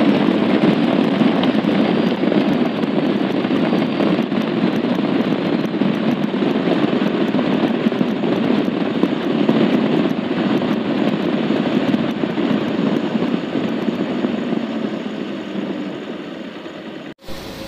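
Wind rushing past the microphone over the Bajaj Avenger 160 Street's single-cylinder engine as the motorcycle rides at speed, growing slowly quieter in the last few seconds as it slows, then cutting off abruptly near the end.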